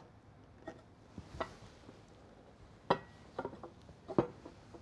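Scattered light knocks and clinks of a ceramic bowl and plate being flipped over and set down on a wooden board, the sharpest knock about three seconds in.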